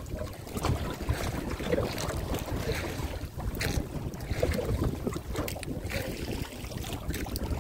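Wind rumbling on the microphone, with scattered light knocks and clicks throughout.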